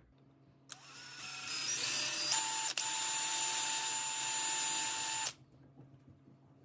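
Cordless DeWalt XR drill with a twist bit boring a pilot hole for a knob screw through a cabinet front. The motor starts slowly and steps up in speed, runs steadily with a momentary dip, then stops sharply about five seconds in.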